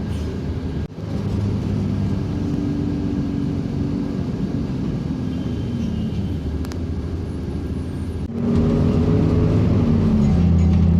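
Motor vehicle engines in road traffic: a low running hum that slowly shifts in pitch. It drops out briefly about a second in, and after an abrupt change about eight seconds in it is louder.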